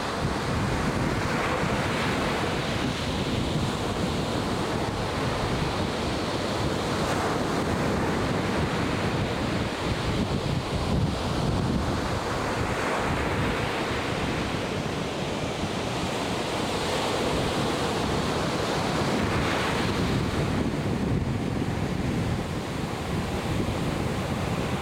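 Atlantic Ocean surf breaking and washing in, swelling and easing every few seconds, with wind buffeting the microphone.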